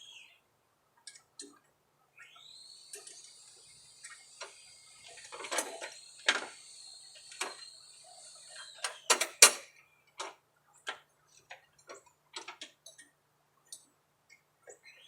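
A steady, high-pitched insect call sets in with a rising start about two seconds in and drops away near nine seconds. Under it run scattered clicks and clanks of tools and metal parts being worked on a mower deck, the loudest a pair of sharp knocks about nine seconds in.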